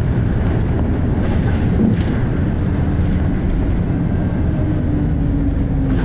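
Volvo B6LE bus's six-cylinder diesel engine running under load, a loud steady low rumble, with a faint high-pitched whine held over it and an engine note slowly rising through the second half.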